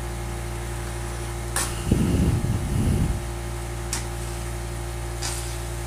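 Spatula stirring chicken in a stainless wok, with a few light clicks of the spatula against the pan and a low rumble for about a second near the middle, over a steady low hum.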